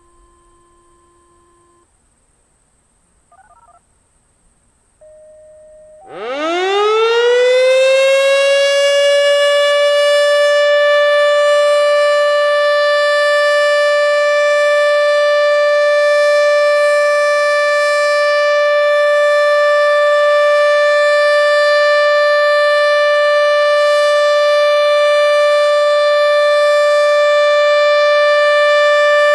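ASC OM-120 nine-port omnidirectional mechanical warning siren winding up about six seconds in, its pitch rising quickly for a few seconds, then holding one steady, loud tone: the steady Alert signal of a siren test.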